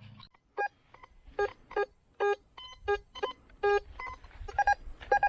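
Teknetics T2 metal detector sounding about a dozen short target beeps in quick, irregular succession, some lower in pitch than others, as the coil sweeps over several buried targets lying close together.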